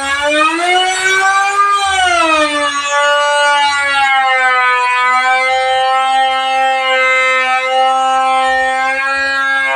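Electric woodworking power tool motor whining as it shapes wood. Its pitch rises slightly over the first second or so, drops back within a couple of seconds as the cutter takes load, then holds a steady drone.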